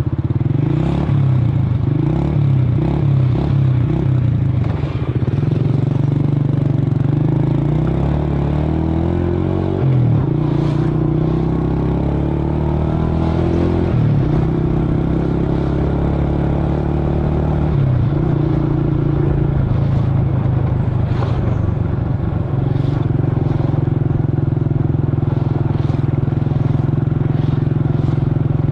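Scooter engine running. Its pitch wavers unevenly for the first few seconds, then it settles into a steady idle with a few small changes in speed and occasional light clicks.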